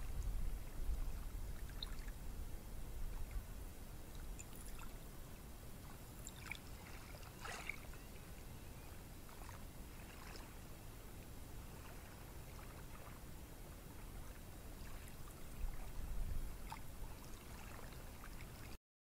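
Gentle ocean surf on a beach: a quiet, steady low rumble with faint fizzing and trickling of water. It swells at the start and again about sixteen seconds in, then cuts off suddenly near the end.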